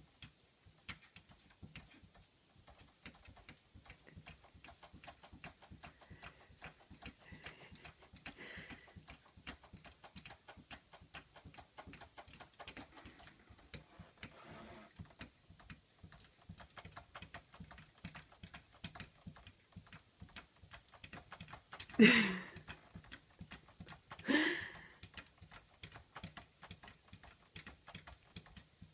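Cat's claws and paws tapping and scraping rapidly and irregularly on mirror glass. Two louder short cries come about two seconds apart late on.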